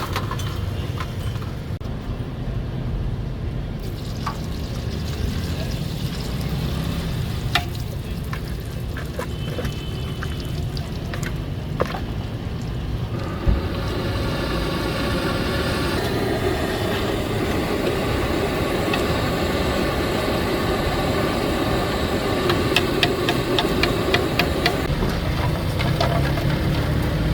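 Potato fries frying in hot oil and stirred with a metal spoon that clicks against the pan, over a steady low street rumble. The frying grows louder about halfway through, and the spoon clicks come quickly near the end.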